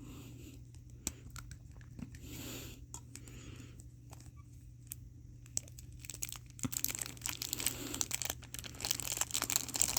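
Plastic packaging handled by hand: a few small clicks at first, then from about two-thirds of the way in a steady, growing crinkling of a plastic wrapper.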